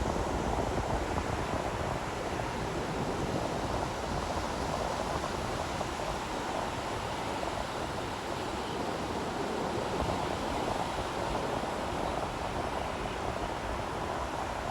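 Surf on a beach: a steady, even rush of waves with no separate breaks or crashes standing out.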